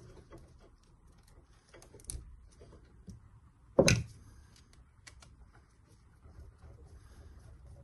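Small clicks and rustles of hands handling wiring, ring terminals and the switch, with a sharp knock about four seconds in as a tool is set down on or picked up from the workbench.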